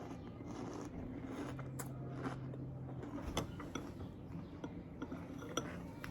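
A spoon clinking and scraping against a cereal bowl while crunchy cereal is eaten: a few sharp clicks, the loudest about three and a half and five and a half seconds in, over a steady low hum.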